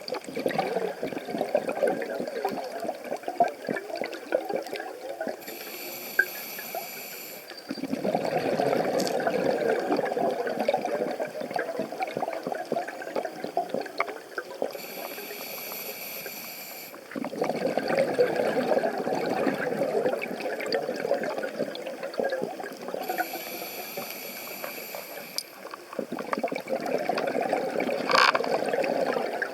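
Underwater scuba breathing through a regulator: three short hisses of inhalation about every nine seconds, each followed by several seconds of bubbling exhaust bubbles, with a few faint clicks in between.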